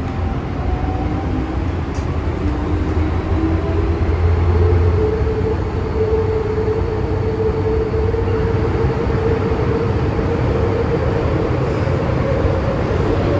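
MTR M-train electric multiple unit pulling away from a station, heard from inside the car: the traction motors whine, rising in pitch over the first few seconds as it picks up speed and then holding, over a steady rumble of wheels on rail.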